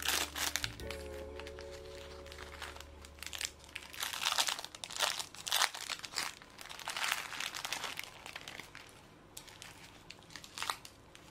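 Thin plastic film of a convenience-store onigiri wrapper crinkling and crackling in several bursts as it is pulled away from the rice and nori. Soft background music fades out in the first few seconds.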